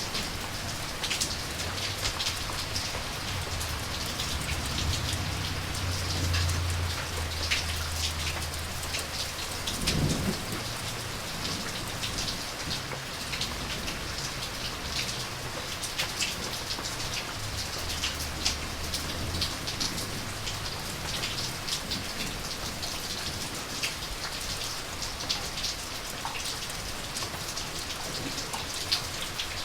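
Steady rain falling on a surface, with many sharp individual drop hits over the hiss. Low thunder rumbles for several seconds, from about four seconds in, and ends in a sharper burst around ten seconds. A weaker rumble follows about eight seconds later.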